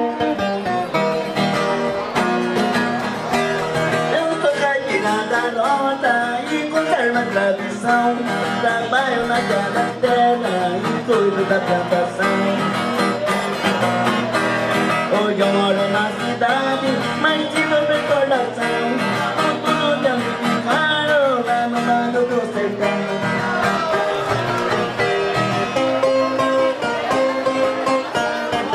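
Viola caipira, the Brazilian ten-string guitar, strummed and picked in a lively country-style tune, with quick runs of plucked melody notes and no pause.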